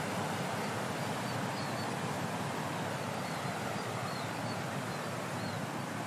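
Ocean surf washing steadily over rocks, a continuous wash with no single wave standing out. A few faint high chirps sound above it.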